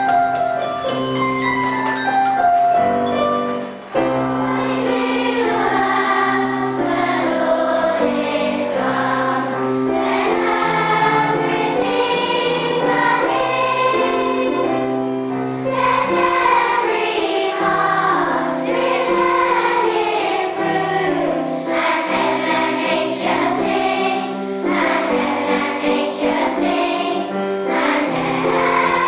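Children's choir singing a song with instrumental accompaniment. A short instrumental opening gives way to the voices about four seconds in.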